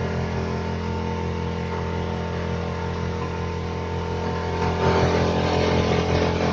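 Small boat's motor running steadily, a low even drone with a fast regular beat, turning louder and noisier about five seconds in.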